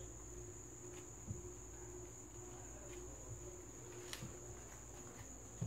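Faint, steady high-pitched drone of insects, over a low hum, with a few soft clicks about a second in and about four seconds in.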